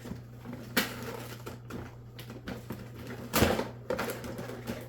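Rummaging in a cardboard box of canister-filter parts: packaging rustling and parts clicking and knocking, with a sharp knock just under a second in and a louder rustle about three and a half seconds in.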